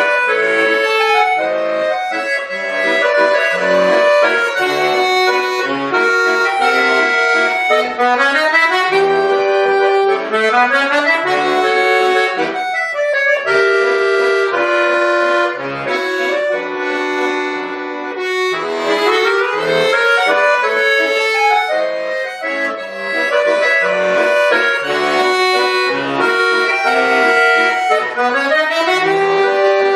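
Bayan (Russian button accordion) playing a lively piece, with quick rising runs of notes over regularly repeated bass notes and chords.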